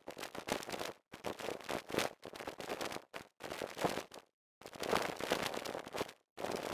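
Procedurally synthesized footsteps from a Pure Data model: a run of crackly, crunching steps about one a second, each lasting most of a second, with brief silences between them.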